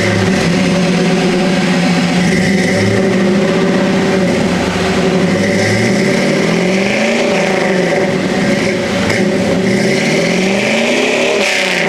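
The 5.3-litre LS V8 from a 2001 Suburban, fitted with headers, running just after a startup, revved up and back down a few times in the second half.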